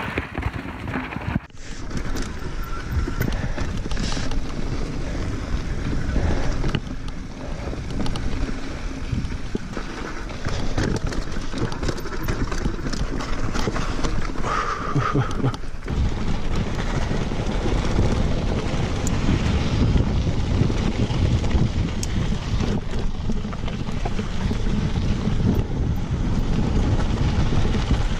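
Wind buffeting an action camera's microphone as a mountain bike rolls fast down a dirt and rock singletrack, with tyre noise and many small rattles and knocks from the bike over the rough trail.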